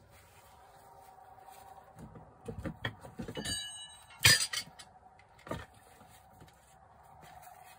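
Hard objects being handled and set down: a few knocks starting about two seconds in, a short ringing clink, then a sharp clack a little past four seconds, the loudest, and one more knock about a second later, over a faint steady hum.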